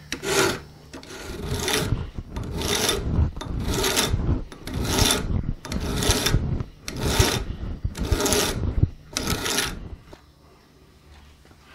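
A flat hand file is drawn back and forth across the end of a shotgun barrel's rib to shorten it, scraping in strokes about once a second. The filing stops about ten seconds in.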